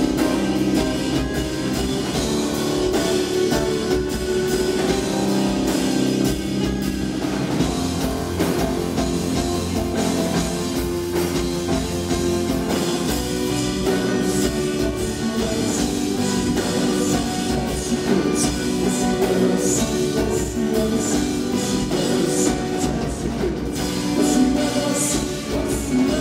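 Live rock band playing: drum kit, electric bass and electric guitars, with a male lead singer.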